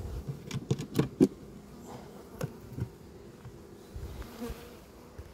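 Honey bees buzzing around an opened hive, with several sharp knocks and taps from the wooden and metal hive parts being handled in the first three seconds.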